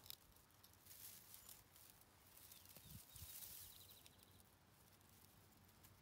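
Near silence with faint rustling of dry wheat straw and light clicks as the wooden blade handle is handled, and a brief faint high chirping about three seconds in.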